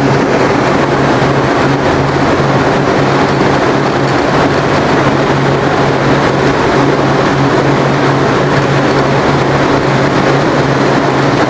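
Speedo Ultima SP 81 air cooler's fan running: a steady whoosh of moving air over a low, even motor hum.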